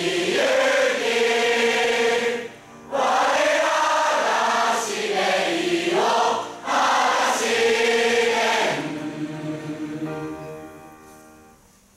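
Hundreds of high-school boys and girls singing their school song together in chorus. The phrases are broken by two short breaths, and the song ends on a long held note that fades away near the end.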